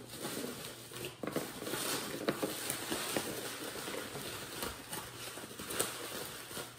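Packaging rustling as hands dig the next item out of a cardboard box, with many small clicks and crinkles throughout.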